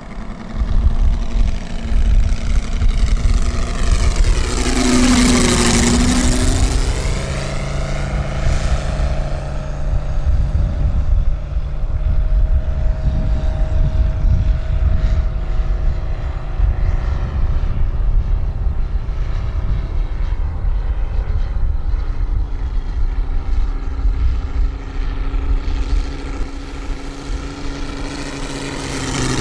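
Engine of a large-scale radio-controlled model biplane (Moki 250 cc) running steadily in flight. About five seconds in it makes a close fly-by, and its pitch drops as it passes.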